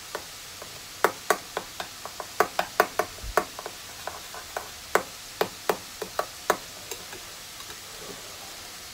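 A metal spoon clinking quickly and irregularly against a small stainless steel bowl as miso is stirred and dissolved into a black vinegar seasoning mix. The clinking stops near the end.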